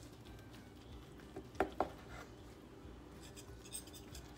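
Knife sawing through a cooked meatloaf on a wooden cutting board: faint scraping strokes, with two sharp knocks a moment apart about a second and a half in.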